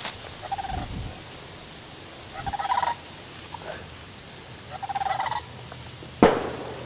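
Short nasal duck quacks, three bouts about two seconds apart, the middle one the strongest. A sudden loud bang comes near the end.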